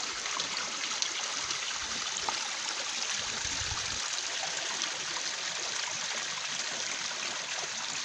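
Small mountain stream running low, trickling over stones: a steady watery hiss.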